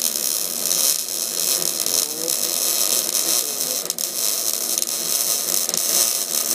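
MIG welding arc running steadily on pipe: a continuous buzzing hiss with scattered sharp pops, the wire stick-out set about right.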